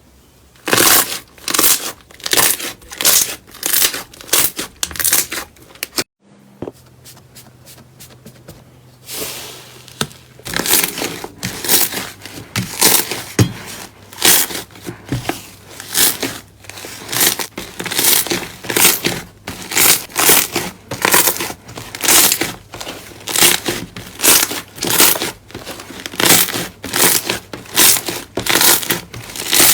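Slime being squeezed and pressed by hand, giving crackly, crinkling squishes that repeat about twice a second, with a short break about six seconds in.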